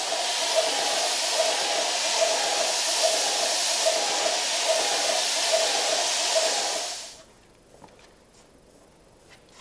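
Airless spray gun spraying filler onto a wall: a steady loud hiss with a regular pulse a little more than once a second. It cuts off sharply about seven seconds in when the spraying stops, and a few faint clicks follow.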